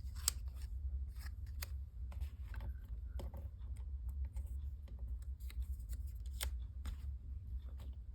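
Cardstock pieces being handled and set down on a table: scattered small taps, clicks and paper rustles, over a steady low hum.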